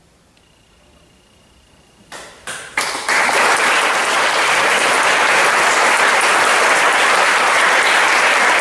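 A quiet hush, then a few scattered claps about two seconds in, and a second later the audience breaks into full, steady applause.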